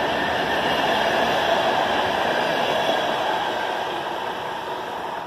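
PKP Intercity passenger coaches rolling past on the track, a steady rush of wheels on rails that eases off toward the end as the last coach moves away.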